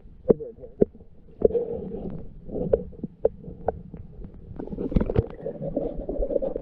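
Muffled underwater sound picked up by a camera submerged in a shallow creek: a low water rumble with scattered sharp clicks and knocks, busiest about five seconds in.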